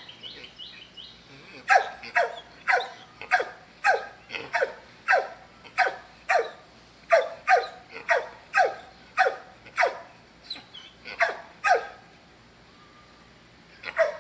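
Dog barking over and over, about two sharp barks a second, each dropping in pitch. The barking stops about twelve seconds in, and one more bark comes near the end.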